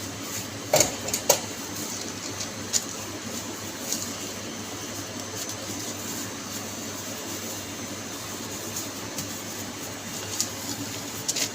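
Steady hum of food-counter machinery, with two sharp knocks about a second in and a few light clicks scattered after.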